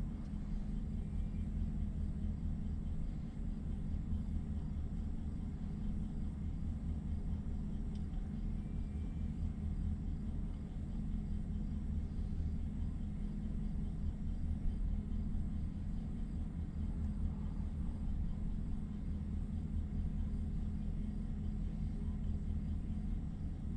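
Steady low rumble of a pickup truck's engine idling, heard inside the closed cab, with a steady low hum.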